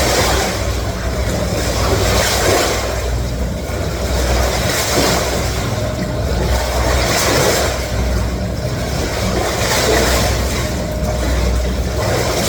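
Counter-current swim machine of a one-person endless pool running at top speed: a steady low hum under churning water, with a splash from a swimmer's stroke about every 1.2 seconds.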